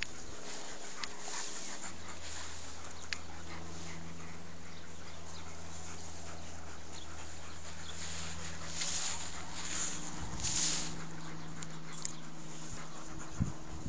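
Alaskan Malamute panting, with a run of louder breaths about nine to eleven seconds in, over a steady low hum.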